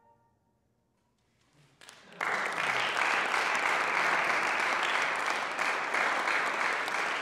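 About a second and a half of near silence, then a few scattered claps, and from about two seconds in an audience applauding steadily.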